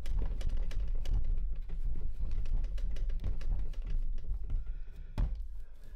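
Dough kneaded by hand on a wooden tabletop: an irregular run of soft thuds and knocks as the hands press and fold it, with one sharper knock about five seconds in.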